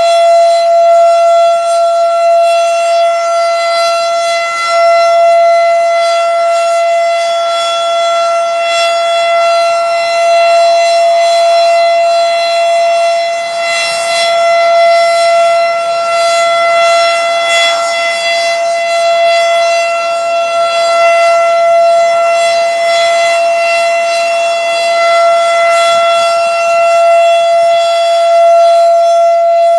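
Federal Signal RSH-10 rotating outdoor warning siren sounding a loud steady tone that holds one pitch without rising or falling, its loudness swelling and easing slightly.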